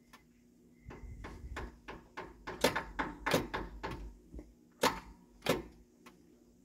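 Hammer knocking on a tractor's starter motor: about fifteen sharp, irregular metal knocks, the loudest about two and a half and five seconds in. No cranking follows. The starter gets no power and is being struck to free it; the owner finds it fried.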